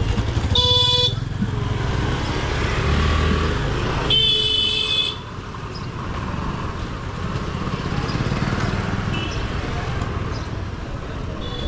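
Street traffic with motor vehicle engines running and vehicle horns honking: one short blast about half a second in, a second, about a second long, around four seconds in, and another starting at the very end. The engine rumble drops after about five seconds.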